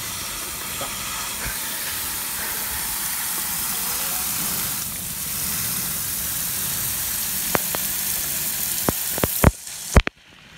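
Steady hiss of water jetting from a burst underground pipe, with a few sharp knocks near the end, after which the hiss cuts off suddenly.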